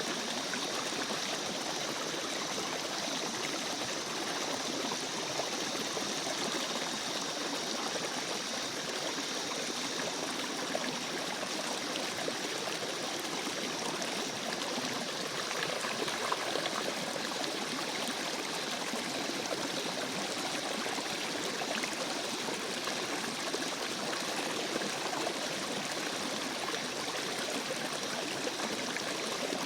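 A small stream running steadily, a continuous, even babble of flowing water.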